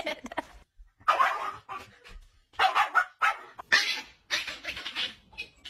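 A chihuahua barking at a cat in several short, high yaps with pauses between them.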